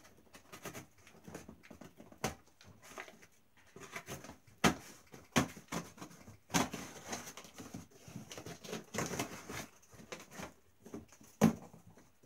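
A knife slitting the packing tape of a cardboard shipping box and the cardboard flaps being worked open: irregular scraping and rustling, with several sharp knocks, the loudest near the end.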